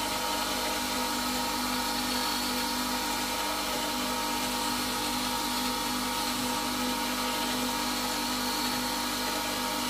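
Whetstone grinder running steadily with a motor hum, while the tip of a spindle gouge held in a plywood jig is rolled against the turning stone wheel.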